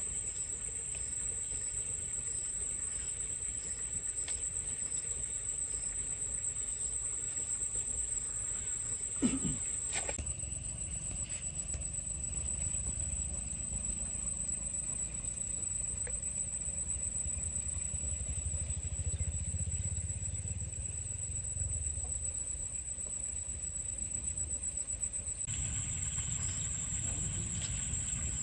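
Insects buzzing steadily at a high pitch, with a low rumble underneath and a brief knock about nine seconds in.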